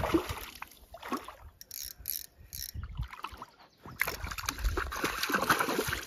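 A hooked chub splashing and thrashing at the water's surface as it is reeled in to the shore, the splashing louder and busier over the last two seconds as the fish reaches the shallows.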